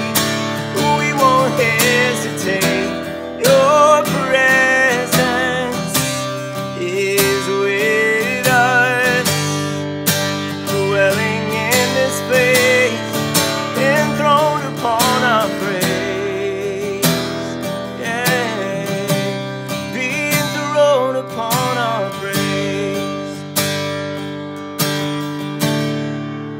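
Acoustic guitar strummed steadily while a man sings a slow worship song over it, his voice wavering and sustained on long notes.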